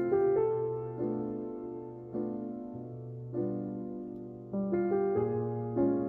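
Soft, slow piano background music: chords struck about once a second, each fading away, over a held low note.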